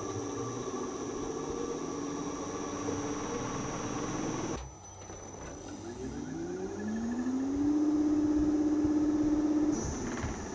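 Inverter air conditioner outdoor unit compressor running with a steady hum. About halfway through, the sound cuts abruptly to another unit, whose compressor whine rises in pitch over a second or two as it speeds up, then holds steady before a second abrupt cut near the end.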